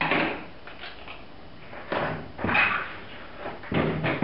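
Tape being pulled off the roll and pressed and smoothed by hand onto a screen-printing screen to cover a pinhole in the emulsion: a few short scraping, rustling noises about a second or two apart.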